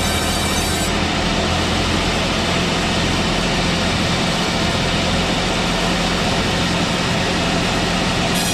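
Old manual-type sawmill running steadily: a constant engine hum under a dense, even noise.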